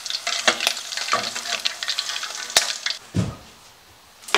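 Tempura-battered squid rings deep-frying in hot oil, a steady sizzle with dense crackling, while a mesh strainer stirs them in the pot. The frying dies away about three seconds in.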